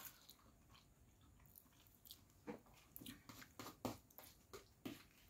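Faint chewing and mouth sounds of a person eating a mouthful of spaghetti: a scatter of short, soft smacks and clicks, mostly in the second half.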